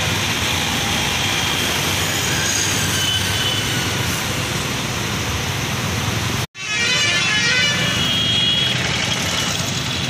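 Road traffic and bus engines running, a steady loud din; the sound cuts out for an instant about six and a half seconds in, then carries on.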